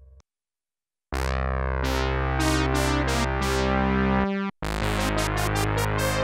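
Sequential Prophet-10 analog polyphonic synthesizer playing a factory preset. After about a second of silence, a full held chord enters with a sweeping attack and repeated bright note onsets, breaks off briefly around four seconds in, and a second chord follows.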